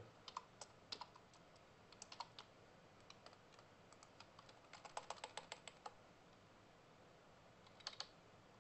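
Typing on a computer keyboard, faint, in short bursts of keystrokes with a quicker run of keys about five seconds in.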